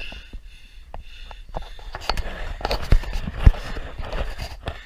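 Footfalls of a person moving quickly over dry ground, with thumps and knocks from the hand-held camera jostling; two heavy low thumps stand out a little after the middle.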